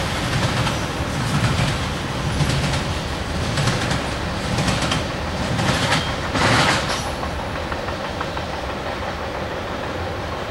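Freight train cars rolling away on the rails: a low rumble with irregular wheel clatter that dies out about seven seconds in, leaving a fading rumble as the rear of the train recedes.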